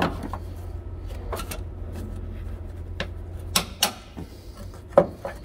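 Several separate sharp clicks and knocks of plastic and metal parts being handled and pulled on, the loudest near the end, while parts of a DEF pump filter assembly are worked loose by hand. A steady low hum runs underneath.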